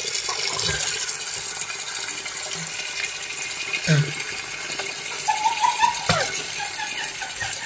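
Kitchen tap running steadily, its stream splashing into the sink as a man rinses his mouth under it, with a few short grunts and mouth noises.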